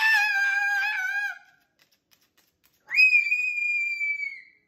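A Moluccan cockatoo calling twice: first a lower, wavering call of about a second and a half, then, after a short pause, a long high whistled call that sinks slightly in pitch at the end, with the bird's crest raised.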